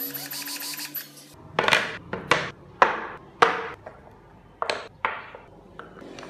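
A rotary carving tool whining against wood, cutting off about a second in. Then about six sharp wooden knocks and clacks as carved wooden parts of a model car are set down and fitted together on a board.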